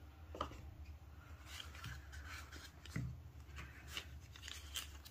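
Faint handling sounds: a few light taps and rustles as hands move foam packaging and a small plastic zip bag.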